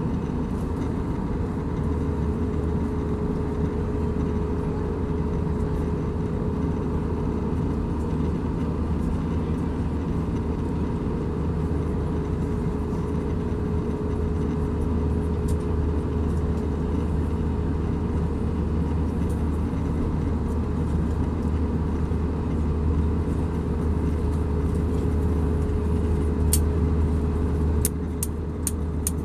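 Airbus A320 cabin noise at a window seat over the wing: a steady rumble of the engines and airflow, with a constant hum over it. A few faint clicks near the end.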